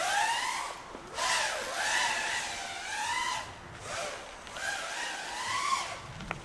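Brushless motors of an FPV freestyle quadcopter whining, the pitch swelling up and down about once a second with short drops as the throttle is punched and cut through flips and dives.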